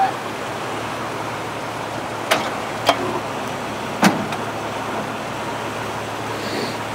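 Jeep engine running steadily at low speed while crawling over a rocky trail obstacle, with three sharp knocks, the last the loudest, a few seconds in.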